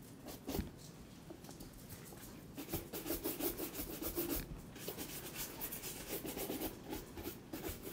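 A horsehair brush stroked quickly back and forth over a leather boot's surface to brush off dust. The strokes are sparse at first and become a quick, continuous run about two and a half seconds in.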